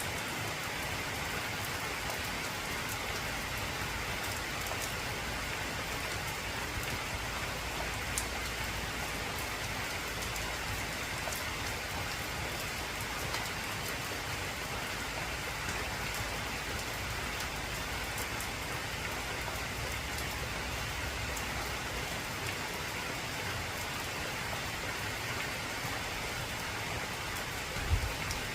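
Heavy rain falling steadily on an old corrugated zinc (tin) roof, an even hiss with scattered sharp drop clicks. A louder single knock comes near the end.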